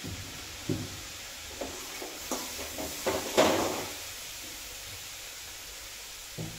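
Kitchen containers and jars being handled: a series of short knocks and clatters as they are picked up, moved and set down, the loudest about three and a half seconds in.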